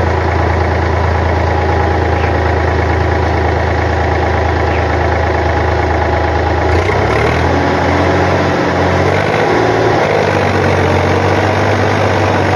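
A farm tractor's diesel engine idling steadily. About seven seconds in, the engine speed dips and rises briefly, then settles back to an even idle.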